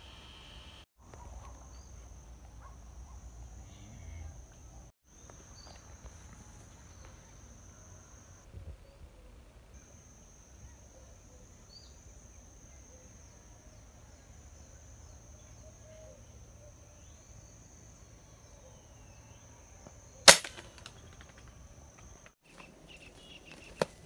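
A single sharp gunshot from a hunting gun about twenty seconds in, fired at a bird in a date palm. A steady faint high-pitched tone runs beneath the quiet outdoor background before the shot, and a smaller sharp knock comes near the end.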